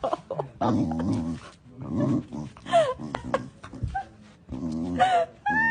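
A dog vocalizing: low growly grumbles broken by short whines that slide down in pitch.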